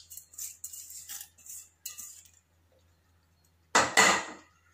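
Roasted dal and spices being scraped off a metal plate into a steel mixer-grinder jar: a few short scraping and clinking sounds, then two louder knocks close together near the end.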